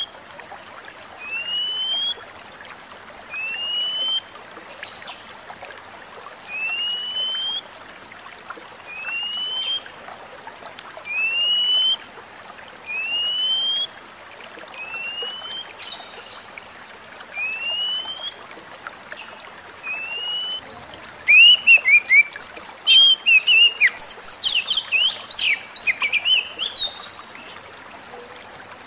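Oriental magpie-robin (kacer) giving a clear, rising whistled note about every two seconds, around ten times. About three quarters of the way through it breaks into a fast burst of varied chirping song lasting several seconds.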